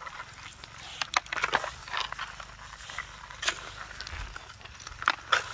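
Someone moving on foot through vegetation: irregular rustling and crackling, with a few sharper snaps near the end.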